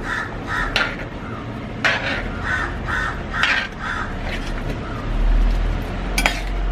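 Crows cawing in a rapid series of short calls, with a few knocks and scrapes of a ladle in the pot as the curry is stirred. A low hum grows louder about five seconds in.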